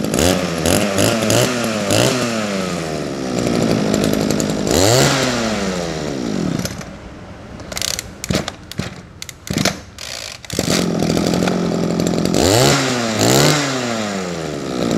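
Small two-stroke engine of a Shindaiwa brush cutter running and revved in quick throttle blips. It cuts out about six and a half seconds in; after a few sharp clicks it runs again and is revved twice more.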